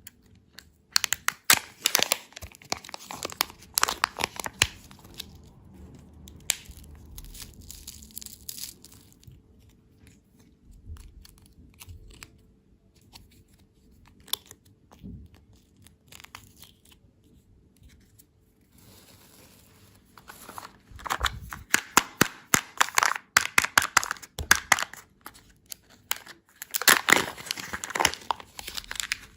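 Candy wrappers being torn open and crinkled, in spells of crackling with a quieter stretch in the middle.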